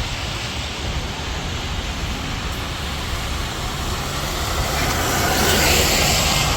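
Road traffic on a wet street: car engines and tyres hissing on wet asphalt, growing louder in the last couple of seconds as vehicles draw near.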